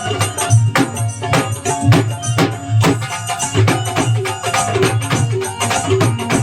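Indian folk devotional music with dhol drumming: a steady beat of deep drum strokes, jingling hand percussion and a sustained melody over it.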